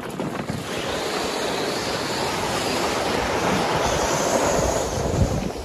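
Water rushing out of a collapsed above-ground pool liner as it is pulled down onto low ground: a loud, steady rush that grows a little near the end and then stops abruptly.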